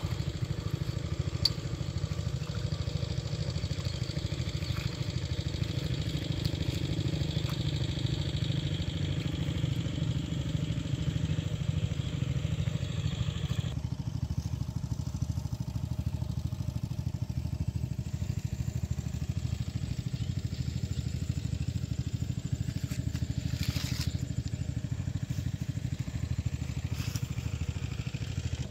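An engine running steadily, a constant low rumble with an even pulse.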